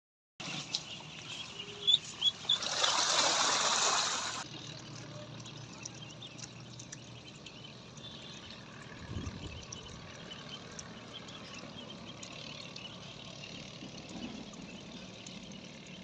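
A large flock of ducklings paddling and splashing in pond water: a steady trickling wash dotted with small splashes, with a few short high peeps near the start and a louder rush of splashing noise about three seconds in.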